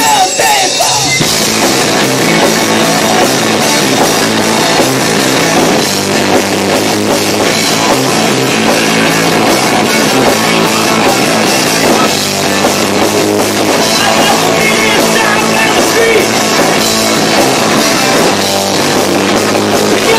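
Live rock band playing loud with electric guitars, bass and drum kit, the whole band coming in together at the start of the song. The camcorder's microphone distorts under the volume, so the sound is harsh and crushed.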